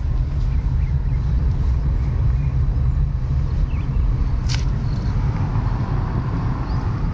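Steady low rumble of a car driving, heard from inside the cabin: engine and road noise at an even level. A single short click about four and a half seconds in.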